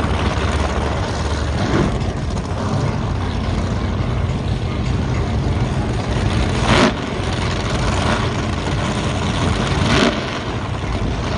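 Steady low engine rumble, with two short louder bursts about seven and ten seconds in.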